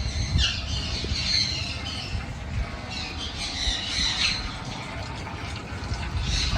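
A flock of budgerigars chirping and chattering, many short calls overlapping in bursts, over a low rumbling background.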